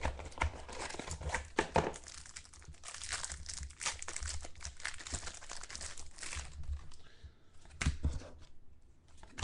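Trading card pack wrapper crinkling and tearing as a pack of football cards is opened and handled, with a few sharp clicks and rustles.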